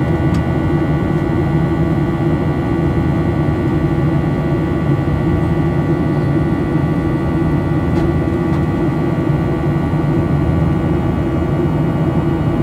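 Steady cabin noise of a Boeing 737-800 in flight, heard from a window seat over the wing: the CFM56-7B turbofan engines' drone and rushing airflow, with a few faint steady whining tones on top.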